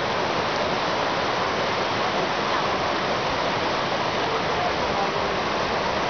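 Mountain stream rushing steadily over rocks, with faint voices of people mixed in.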